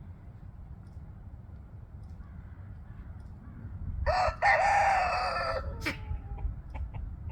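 Rooster crowing once, about four seconds in, a single crow lasting about a second and a half, followed by a sharp click.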